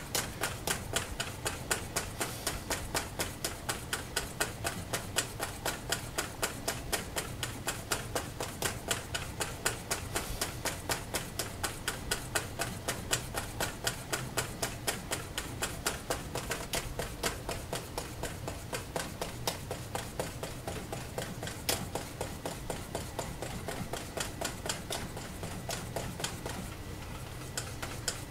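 Wooden-handled utensil stirring egg whites and sugar in a steel bowl, clicking and scraping against the metal about four to five times a second, easing off near the end. The whites are being heated over a steam bath toward 70 °C to dissolve the sugar for Swiss meringue.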